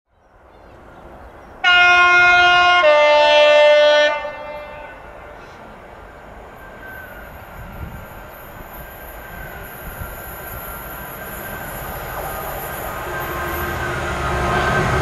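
Class 66 diesel locomotive sounding its two-tone horn, a high note then a lower note, for about two and a half seconds. The train's engine and rail noise then grow steadily louder as it approaches.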